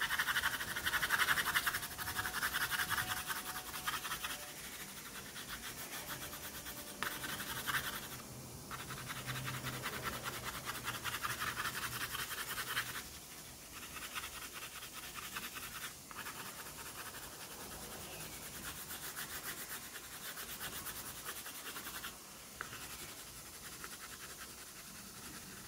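Oil pastel scribbled quickly back and forth on paper, a steady fast scratching in spells with short breaks, softer in the second half.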